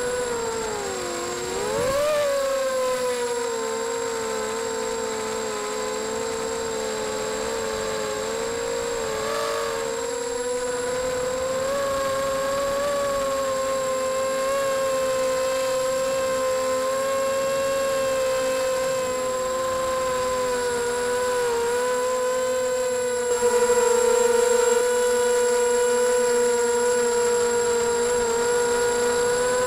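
Motors and propellers of a 250-size racing quadcopter whining steadily, heard up close from the onboard action camera. The pitch dips and rises again and again with throttle changes, and the whine gets louder about three quarters of the way through.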